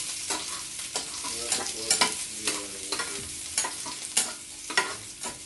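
Ginger and garlic sizzling in hot coconut oil in a frying pan while a metal spoon stirs them, clicking and scraping against the pan many times.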